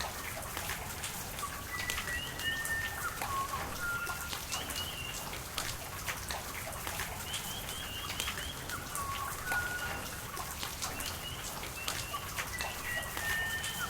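Rain pattering, with many individual drops striking close by, over a steady wash of running water. Birds sing short whistled notes and brief trills throughout.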